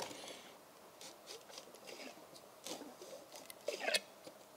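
Girling brake master cylinder being pumped by hand in a vise: faint squelching and small clicks as brake fluid and air are pushed out through the bleed tube, with a louder cluster near the end. This is the bench-bleed flushing debris from a cylinder that had seized and now moves freely.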